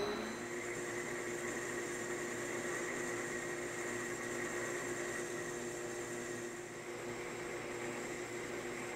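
Metal-turning lathe running at a steady speed, its motor and gearing giving a steady whine of several even tones.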